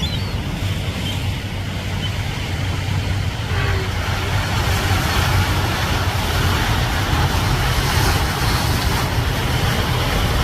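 Strong wind buffeting the microphone as a steady low rumble, over ocean waves breaking and washing against rocks; the surf hiss grows louder about halfway through.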